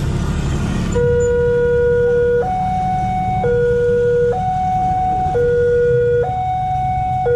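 Railway level-crossing warning alarm sounding its two-tone signal: a lower and a higher tone alternating about once a second, starting about a second in. The alarm warns of an approaching train while the barrier arm lowers. Motorcycle and traffic rumble runs underneath.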